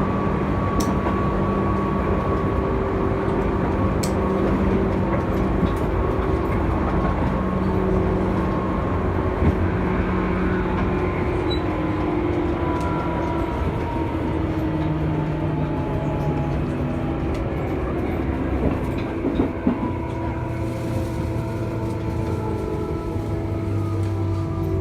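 Running sound inside a Tobu 9000 series train with AFE chopper control, the wheels clacking over rail joints. The chopper and traction-motor whine steps down and falls in pitch as the train slows.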